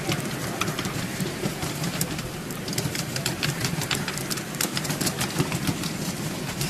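Ride-on miniature railway train rolling along with a steady low rumble and many sharp, irregular wheel clicks over rail joints and points.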